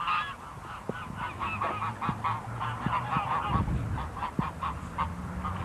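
A flock of domestic geese and ducks calling in a quick, steady run of short honks and cackles as they gather to be fed. A dull low thump comes about three and a half seconds in.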